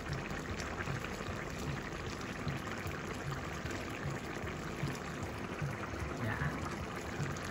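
Coconut-milk vegetable curry boiling in a frying pan: a steady bubbling with many small irregular pops.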